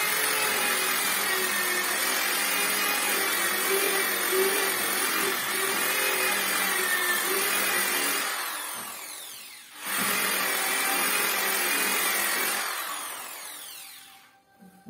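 Handheld electric disc sander running at full speed against a wooden door, sanding off the old finish. About nine seconds in it is switched off and winds down, then starts again and runs briefly. It winds down once more near the end.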